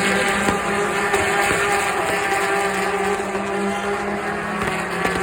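A pack of Le Mans endurance race cars passing in a continuous stream at the race start. Their many engines blend into one loud, steady drone.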